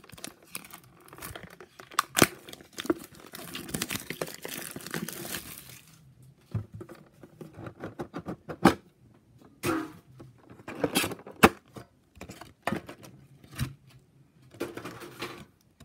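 Plastic wrapping being torn and crinkled off a metal Pokémon card tin for about the first six seconds, then scattered sharp clicks and knocks as the tin's lid comes off and the contents are handled.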